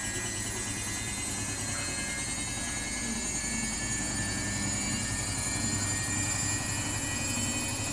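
Samsung WW80J5555FWEU front-loading washing machine spinning: a steady drum hum under a high motor whine, growing slightly louder about halfway through.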